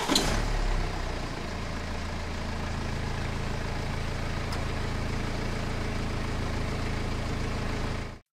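Tractor engine sound: a loud burst in the first second as it starts, then a steady idle that cuts off suddenly just before the end.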